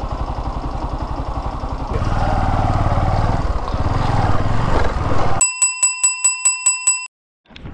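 Motorcycle engine running at low revs, picking up and getting louder about two seconds in as the bike rides off. Near the end the engine sound cuts out and a quick run of about nine bright, bell-like ticks plays in dead silence, an edited-in sound effect.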